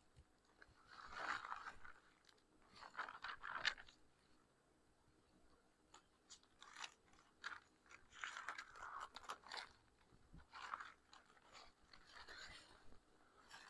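Faint rustling and crinkling of thin Bible pages being turned, in several short clusters, as a passage is looked up.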